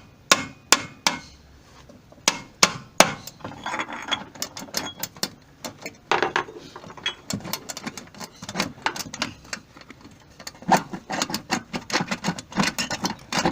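Hammer blows on a steel drift block and nut, driving a seized bearing out of a Mabe washing machine transmission: sharp metallic strikes, spaced at first, then a fast run of blows near the end. The bearing is stuck fast because water got past the seals.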